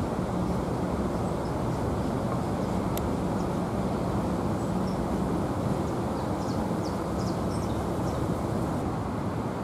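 Steady low rumbling outdoor background noise with no clear single source, with a few faint, short, high-pitched chirps in the middle and a single faint click about three seconds in.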